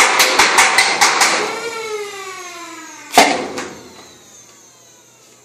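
Modified Nerf Demolisher flywheel blaster firing foam darts in quick succession, about five sharp clacks a second over the whine of its flywheel motors. About a second and a half in the firing stops and the motors wind down with a falling whine; past halfway a single loud snap, the loudest sound, cuts through as the whine dies away.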